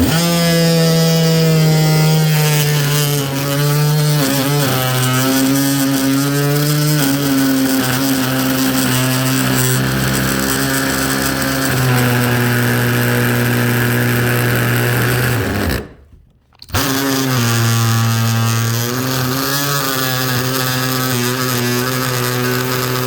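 DeWalt DCS356 20V brushless oscillating multi-tool with a bimetal blade cutting through a stainless-steel screw shaft, its pitch dipping and wavering as the blade loads up in the metal. It stops for a moment about 16 seconds in, then starts cutting again.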